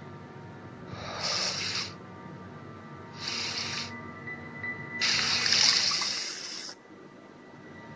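Film soundtrack: a quiet music drone under three short hissing sounds about two seconds apart. The last is longer and louder.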